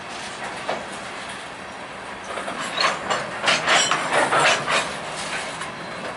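Covered hopper cars of a freight train rolling past, with steady wheel-on-rail noise and clickety-clack. A louder stretch of metallic clatter and short squeals runs from about two and a half seconds in to about five seconds.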